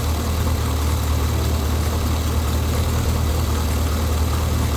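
454 big-block V8 idling steadily with a low, even note, freshly tuned with a new distributor cap and rotor and sounding pretty good.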